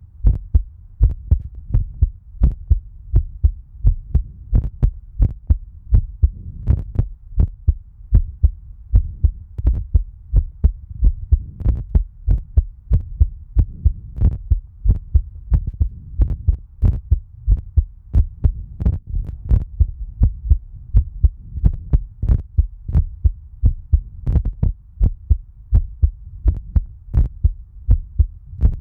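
Human heartbeat recorded up close: steady, evenly spaced low thumps over a continuous low hum.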